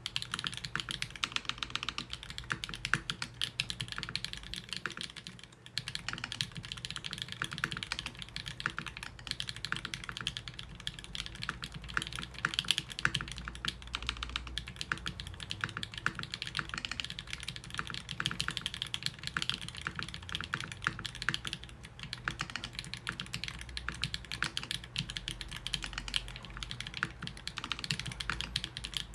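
Steady, fast typing on a TGR Jane v2 mechanical keyboard with a brass plate and lubed tactile Holy Panda switches (Invyr Panda stems in Halo Clear housings) and lubed stabilizers, a dense run of key clacks with brief pauses about five and a half seconds in and again near twenty-two seconds.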